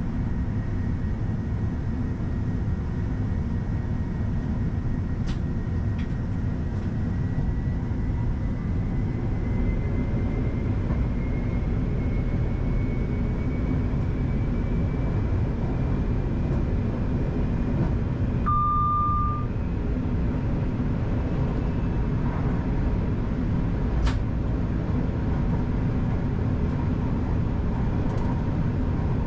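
Class 331 electric multiple unit running along the line, heard from the driver's cab: a steady low rumble of the train on the rails with a faint whine slowly rising in pitch. About two-thirds of the way in, a short electronic beep sounds once, and a few sharp clicks come through.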